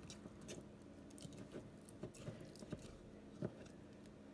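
Silicone spatula stirring thick, freshly fed sourdough starter in a glass mason jar: faint, irregular sticky squelches and light taps of the spatula against the glass.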